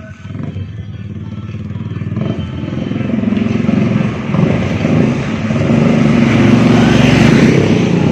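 Several small motorcycles riding up and passing close by, their engines growing steadily louder to a peak near the end as they go by.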